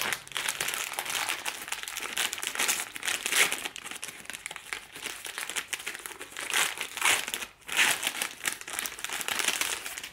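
Plastic wrapper of a chocolate-coated ice cream stick crinkling and rustling as it is torn open and peeled off by hand, a dense, irregular run of crackles.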